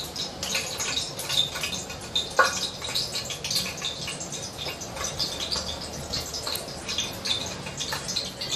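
Groundnut oil heating in a pressure cooker, crackling with fast, irregular little pops and ticks, one sharper pop about two and a half seconds in.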